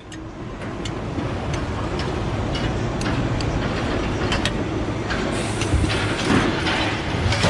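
Steady rumble of a vehicle in motion, with scattered clicks and rattles throughout.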